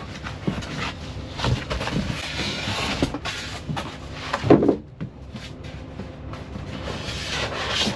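Parts and packaging being handled while unpacking: rustling with scattered knocks and clicks, and a louder thump about four and a half seconds in.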